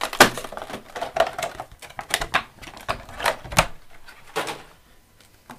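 Clear moulded plastic packaging tray crackling and clicking as over-ear headphones are pulled out of it: a quick, irregular run of sharp snaps and rustles that dies down about four and a half seconds in.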